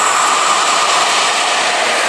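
Electric locomotive hauling a passenger train through the station at speed: a loud, steady rush of wheels and air, with a tone that drops in pitch as the locomotive goes by.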